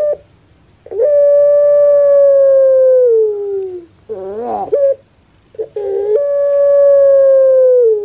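Ringneck dove (puter, Streptopelia risoria) cooing: a short note, then a long drawn-out note of about three seconds that slides down in pitch at its end, and a brief wavering, rolling note. The call starts again about five and a half seconds in.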